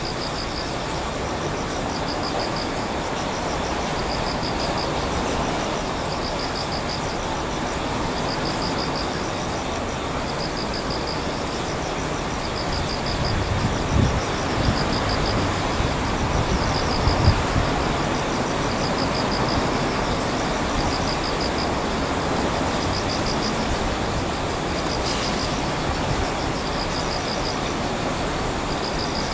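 Steady outdoor background noise of traffic and the rail yard. A short, high pulsed chirp repeats about once a second throughout, and a few low thumps come near the middle.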